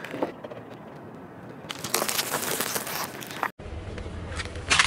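Chocolate-coated snack sticks crunching and crackling as a car tyre rolls over them on asphalt, for nearly two seconds. After a cut, a low rumble is heard, with a sharp crack near the end.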